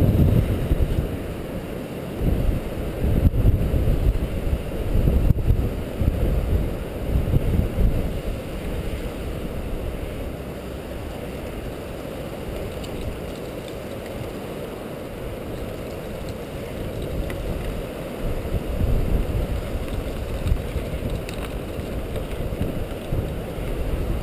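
Wind buffeting the microphone of a camera mounted on a moving bicycle, a gusty low rumble that is strongest for the first eight seconds, eases off, then picks up again after about eighteen seconds.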